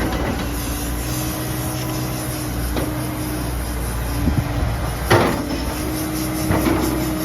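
Komatsu PC70-8 excavator's diesel engine running steadily with a constant whine, broken by a few metal knocks, the loudest about five seconds in.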